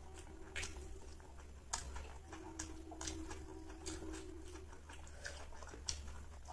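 Quiet eating by hand: soft scattered clicks and smacks of chewing and of fingers working rice on clay plates, about one every half second to second, over a faint steady hum.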